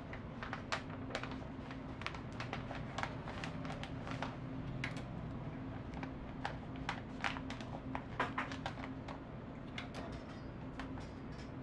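Kraft paper cone crinkling and rustling in irregular crackles as it is handled and folded around an egg waffle, over a steady low hum.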